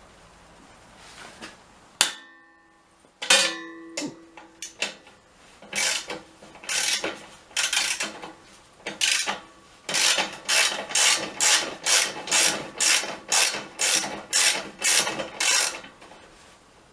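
Socket ratchet wrench worked back and forth on a motorbike exhaust mounting bolt, clicking in repeated strokes that settle to about two a second in the second half. A sharp click and a clatter of metal tools come about two to four seconds in.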